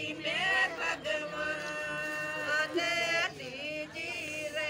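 A voice chanting Hindu wedding mantras in long, held notes.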